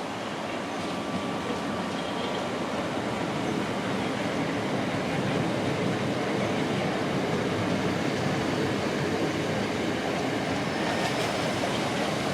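Steady rushing noise that grows slightly louder, with a few faint steady tones in it.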